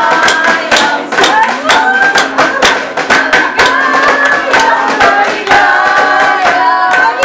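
A group of voices singing together to a strummed acoustic guitar, with hands clapping along in a steady rhythm.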